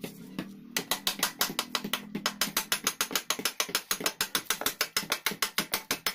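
Ratchet wrench clicking rapidly and evenly, about eight clicks a second, starting about a second in, as it works the swing arm pivot bolt of a Honda XR200.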